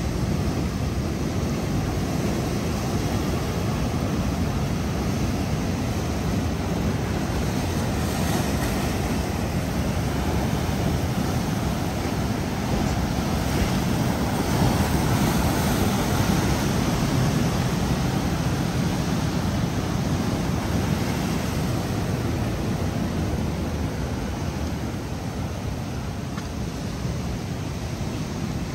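Ocean surf washing steadily with wind, swelling a little about halfway through and easing off near the end.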